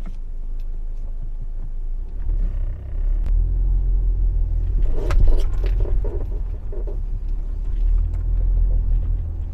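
A 2015 Audi A4 rolling with a steady low road rumble, its suspension giving a run of short rubbery creaks and squeaks, loudest a little past the middle. The mechanic takes it for the rubber bushings of the control arms rubbing as the car's body moves.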